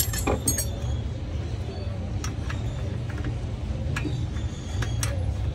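Scattered light clicks and clinks of metal tools and engine parts being handled during an auto rickshaw engine strip-down, over a steady low rumble.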